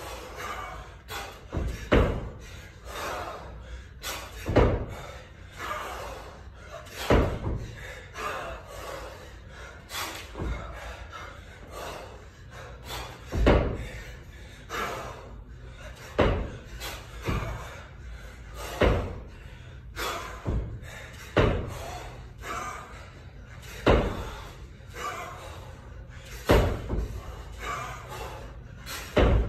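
Kettlebell repetitions: a heavy thud about every two and a half to three seconds as the bell is worked up and down, with lighter knocks between.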